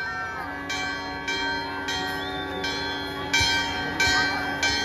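Large hanging bell rung over and over, about three strokes every two seconds, each stroke ringing on into the next.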